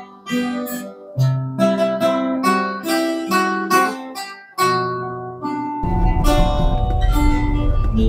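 Acoustic guitars playing the instrumental break of a slow ballad, picked melody notes over chords, with no singing. About six seconds in, a dense low rumble comes in under the guitars.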